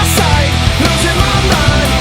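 Loud hard-rock music with a steady driving beat and a bending lead line over it.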